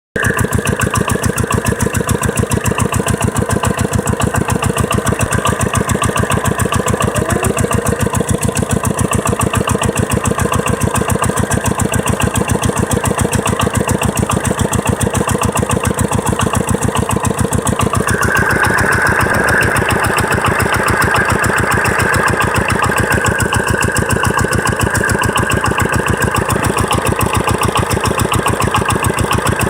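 Single-cylinder 'dompeng' diesel engine running steadily, driving an irrigation water pump, with a fast, even beat of firing strokes. About two-thirds of the way in, a higher-pitched note grows stronger over the engine.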